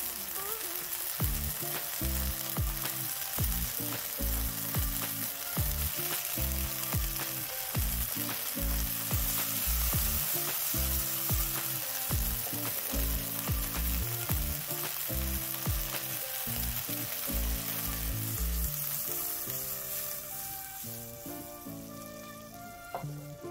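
Food sizzling as it fries in a pan, with some stirring, under background music that has a steady low beat. The sizzle fades near the end, leaving the music.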